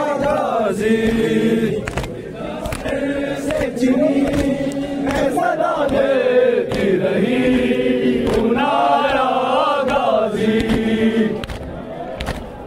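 A group of men chanting a Muharram mourning lament (noha) in phrases of a second or two, with scattered thumps of hands beating on chests. The chanting eases off near the end.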